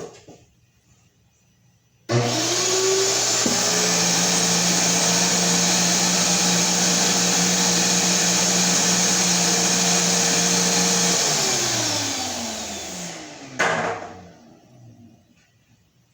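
Shop-Vac Super 1300 7.5-gallon wet/dry vacuum switched on, its motor spinning up quickly and then running loud and steady with a whining tone for about nine seconds. It is then switched off and winds down, its pitch falling, with a single knock near the end of the wind-down.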